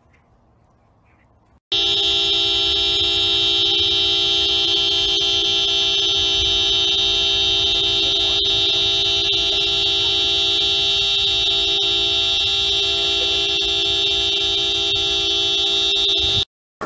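Car horn sounding in one long, unbroken steady note for about fifteen seconds, held down by a husky pressing on the steering wheel. It starts abruptly about two seconds in and cuts off suddenly near the end.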